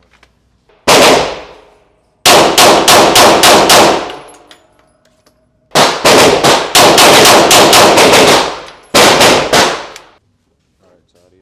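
Pistol shots fired rapidly at close range: a single shot about a second in, then three fast strings of shots at roughly four a second, each crack ringing off the range's walls.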